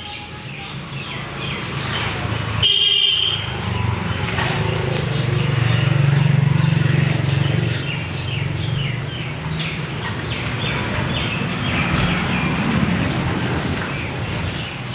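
Steady low rumble of road traffic with a brief horn toot about three seconds in, under rapid, repeated high chirping calls.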